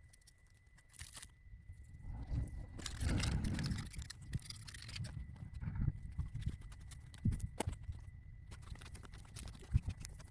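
Close-miked handling noises while a power cable is being repaired: irregular clicks, taps and rustles of the cable and tools, with a faint steady high whine underneath.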